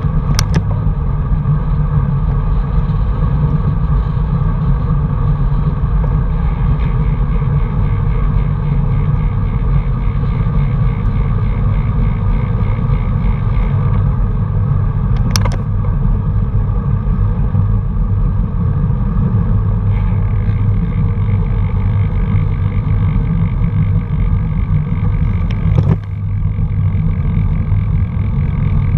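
Steady low rumble of a vehicle travelling along a road, with a sharp click about half a second in and another about fifteen seconds in.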